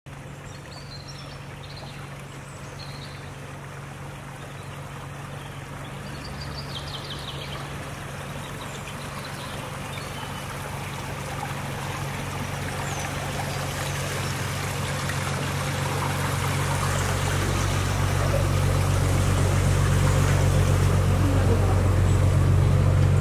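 Engine of a canal boat, a low steady hum that grows steadily louder as it comes near, over the sound of moving water. A few birds chirp at first.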